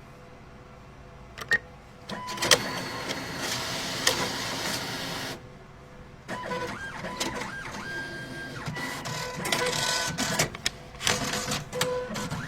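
Money-handling machine running: a single click, then two spells of mechanical whirring and clattering with several short electronic beeps in the second spell.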